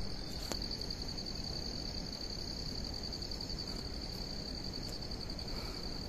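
Insects trilling: a steady, high-pitched pulsing buzz that carries on without a break, over a low, even background noise.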